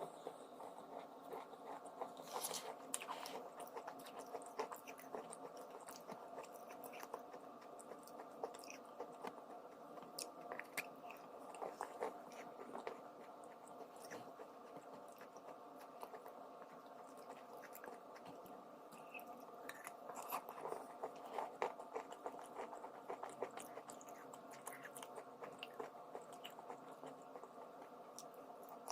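A person biting and chewing something dry and crunchy, giving many small sharp crunches, busiest near the start and again about twenty seconds in, over a steady low hum.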